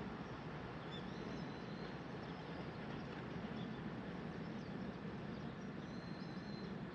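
Quiet outdoor background: a steady low rumble with a few faint, short bird chirps, about a second in and again near the end.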